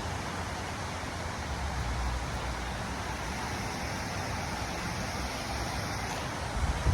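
Steady rush of a waterfall: an even, continuous noise of falling water with a low rumble underneath. A couple of short low thumps come near the end.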